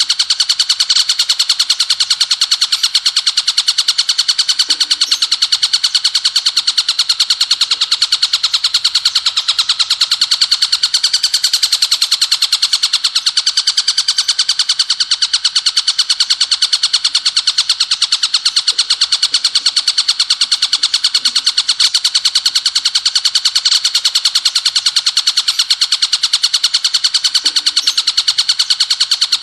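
Ciblek gunung, a prinia, singing a 'bren' song: a loud, unbroken, machine-gun-fast trill of high, evenly repeated chirps that never pauses, played as a bird-keepers' training recording.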